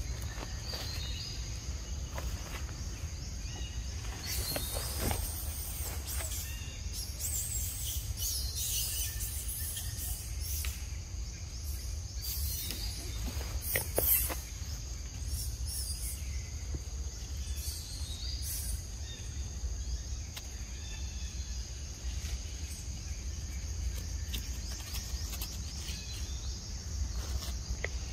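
Forest ambience: a steady high insect drone over a low rumble, with several bursts of high chirping calls, the loudest about fourteen seconds in.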